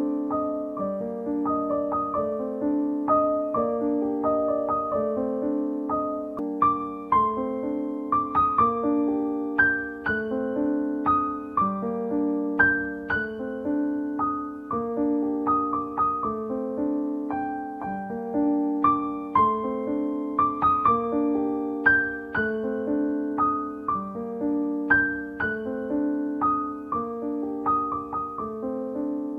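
Background piano music: a gentle, repeating pattern of struck notes with a steady rhythm.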